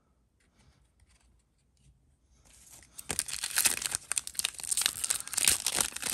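The plastic wrapper of an NBA Hoops trading card pack being torn open and crinkled, starting about halfway through after a few faint handling clicks.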